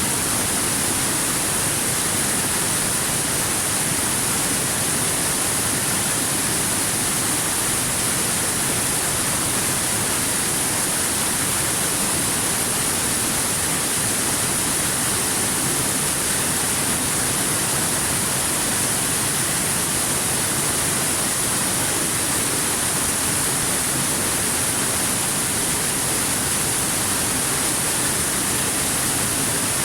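Stream water rushing over river rocks: a steady, unbroken rush with a strong high hiss.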